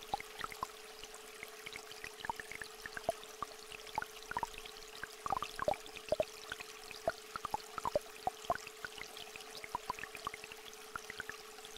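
A steady, unbroken pure tone held over the soft trickle of a small stream, with many water drops plinking at uneven intervals.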